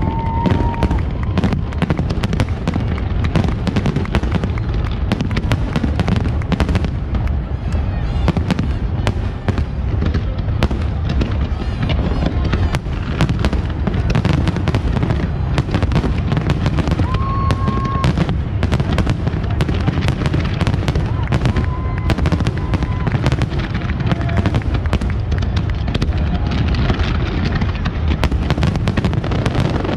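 Fireworks display in full barrage: a dense, continuous run of bangs and crackles over a steady low rumble of bursts.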